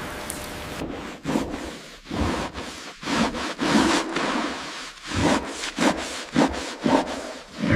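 Rough rubbing or scraping strokes against a surface, irregular at roughly two a second, starting about a second in after a steady hiss.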